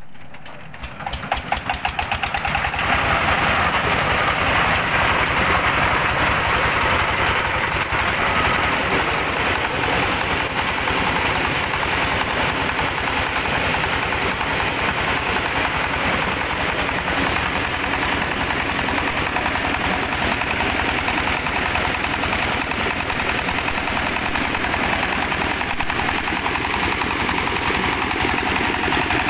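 Single-cylinder diesel engine driving a mobile corn sheller. It picks up speed over the first two to three seconds, its knocking quickening and growing louder, then runs steadily under load with the threshing drum turning.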